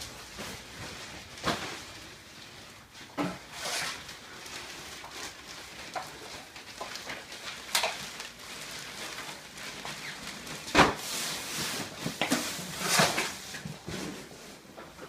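Scattered knocks, clicks and rustling over a faint hiss, with one sharp knock about eleven seconds in as the loudest.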